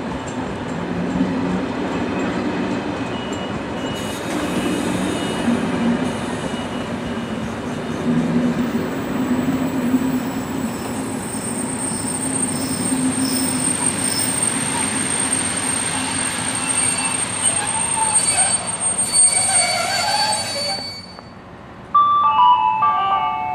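Trains at a station platform: a steady low rumble of standing rail vehicles running, with thin high squealing tones over the second half. The rumble falls away sharply near the end.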